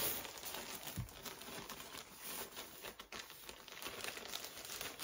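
Frosted plastic clothing bag crinkling and rustling in irregular bursts as it is handled and pulled open.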